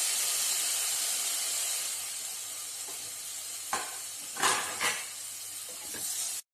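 Chopped tomatoes sizzling in hot oil and spice masala in a cooking pan, a steady hiss that slowly eases. A spoon knocks and scrapes against the pan a few times in the second half, and the sound cuts off suddenly just before the end.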